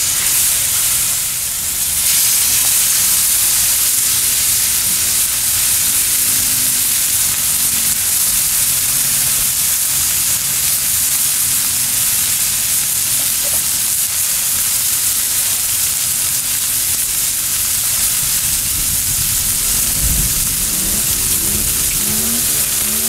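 Butter and food sizzling steadily on a hot cast-iron grill sear plate, a searing sizzle.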